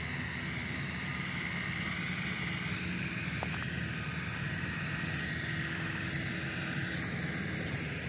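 Engine of a rice threshing machine running at a steady speed, a constant drone without change.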